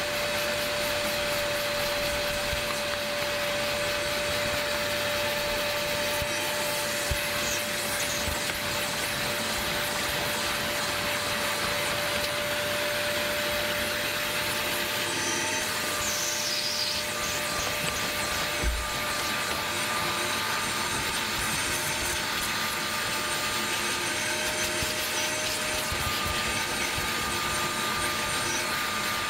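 Caramba 7.0 wet/dry vacuum running steadily with a constant motor whine while dry-vacuuming a car floor mat; a second, higher whine joins about halfway through.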